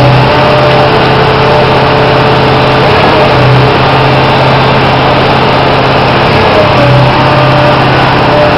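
Stationary concrete pump running loudly and steadily. Its low hum swells about every three and a half seconds, with a short higher-pitched blip at each swell.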